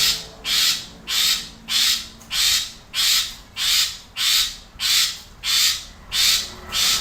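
Asian pied starling (jalak suren) giving a steady run of harsh, rasping calls, close to two a second.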